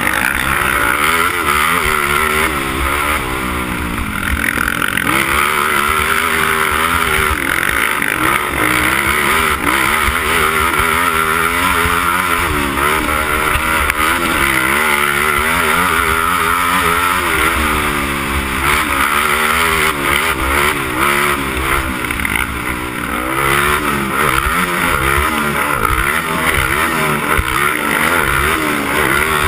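Honda TRX300EX quad's single-cylinder four-stroke engine, revving up and falling back over and over under hard throttle on a dirt motocross track, heard from the rider's helmet camera.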